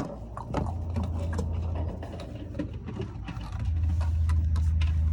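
Scattered clicks and knocks of small plastic toys being handled, over a steady low hum that grows louder about three and a half seconds in.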